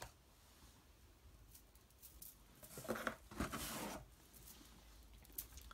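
A book being handled: quiet shuffling, with a brief rustle about three seconds in as it is picked up and moved, and a faint click near the end.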